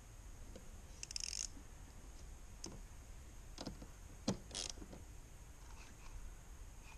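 Faint clicks, scrapes and short rustles of hand work with a screwdriver and wiring, connecting the positive cable at the battery terminal, with one sharp click a little past the middle.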